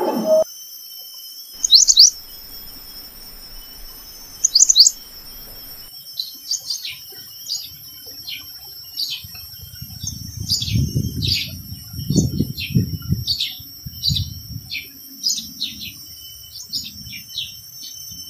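Forest birds calling: two loud, quick double chirps in the first five seconds, then a long series of short falling chirps about twice a second. A steady high insect drone runs underneath, and a low rumble comes in the middle.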